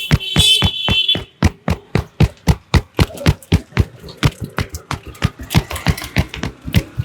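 Rapid, even hand strikes of a percussive barber's massage, about four sharp slaps a second.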